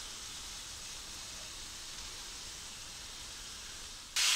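Chuck roast sizzling steadily in hot oil in a skillet as it sears. About four seconds in, the sizzle suddenly becomes much louder.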